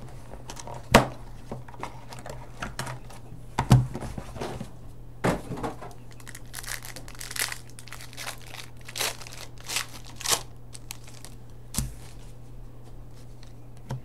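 A trading-card box being opened by hand: sharp knocks of the box on the table about a second in and again near four seconds, then a run of crinkling and tearing of the plastic wrapping as the pack and cards come out, over a steady low electrical hum.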